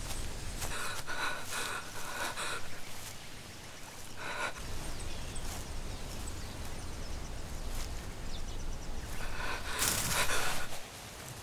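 A person breathing hard in short gasps over a low rumble of ambience, with a loud gasp near the end.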